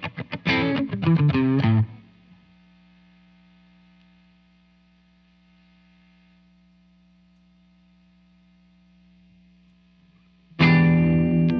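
Electric guitar played through a Joyo R-02 Taichi overdrive pedal, a Zendrive-style Dumble-voiced clone. A quick run of picked notes stops about two seconds in and leaves only a faint steady tone for a long stretch. Near the end a loud overdriven chord is struck and held.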